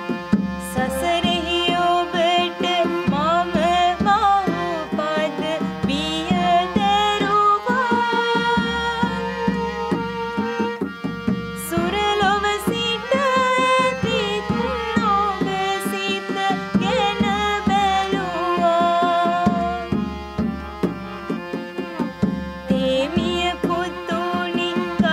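Music in an Indian classical style: a gliding, wavering melody over a steady drone, with frequent hand-drum strokes.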